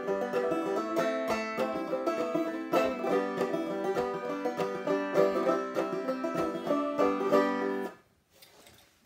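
Banjo played clawhammer style, plucked notes mixed with brushed strums, stopping about eight seconds in.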